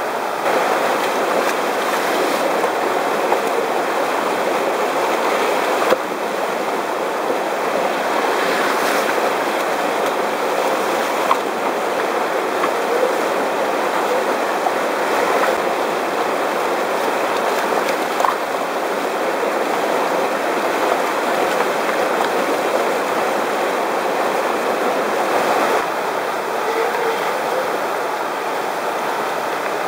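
Whitewater rapids rushing steadily, with a few faint knocks.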